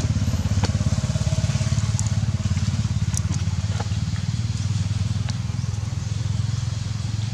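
An engine idling with a steady low rumble and a fast, even pulse, with a few faint ticks over it.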